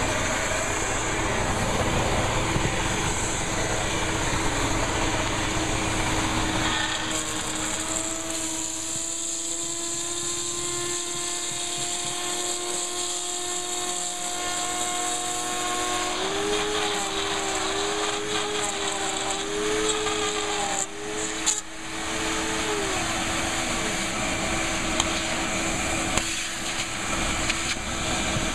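Handheld variable-speed router with a 1/4-inch bit running steadily while cutting along a template in a panel. Its whine wavers in pitch under load for several seconds after the middle, with a brief dip in loudness partway through.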